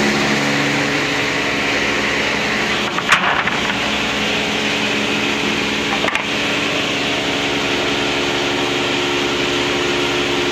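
Woodmaster planer/moulder running steadily at a loud, constant pitch, with a sharp knock about three seconds in and a lighter one about six seconds in.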